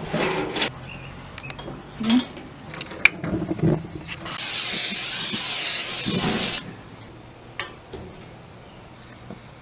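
Gas grill being fired up: a few clicks and knocks, then the burner hissing loudly and steadily for about two seconds, starting about halfway through.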